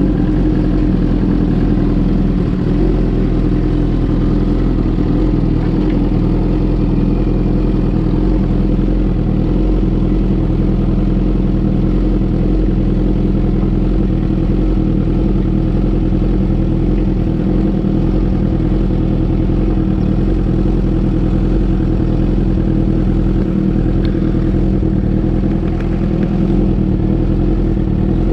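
Suzuki GSX-R 1000's inline-four engine idling steadily through an Austin Racing aftermarket muffler, at an even, unchanging pitch.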